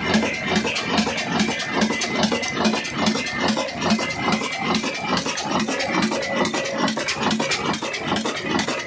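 Old Ruston diesel engine running steadily, with an even, rhythmic mechanical clatter of about three to four beats a second.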